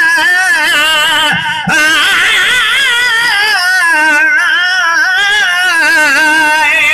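Male voice singing a devotional naat through a PA microphone, drawn out in long melismatic lines with heavy vibrato and no instruments, with a brief break for breath about one and a half seconds in.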